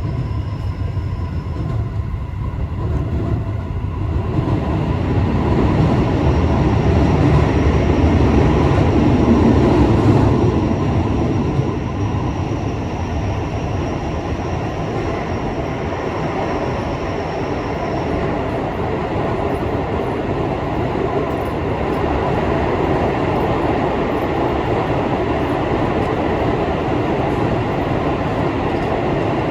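Running noise of a Keio Liner electric train (Keio 5000 series) heard from inside the car: a steady rumble of wheels on rails that swells louder for several seconds about a third of the way in, with a faint high whine through the middle.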